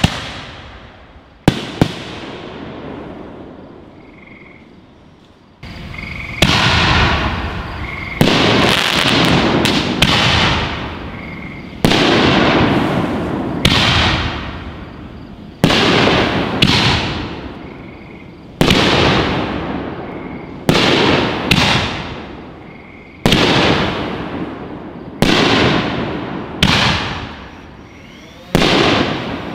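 Raccoon Fireworks Holy Nishiki canister shells bursting: a sharp bang at the start and two cracks about a second and a half in, then from about six seconds on a steady run of bursts, one or two every couple of seconds, each loud bang trailing off in a fading crackle and hiss.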